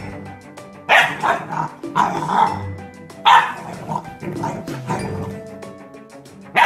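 English bullmastiff puppy barking in a run of sudden barks, loudest in the first three and a half seconds and fainter after, over background music.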